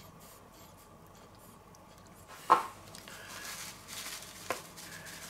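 A sharp knock about two and a half seconds in, then the rustle of a paper bag of pizza seasoning being handled and shaken, with a small click near the end.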